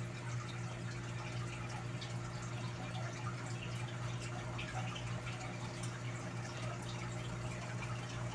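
Glutinous rice and coconut milk heating in a pot toward the boil, with small scattered bubbling pops and ticks. A steady low hum runs underneath.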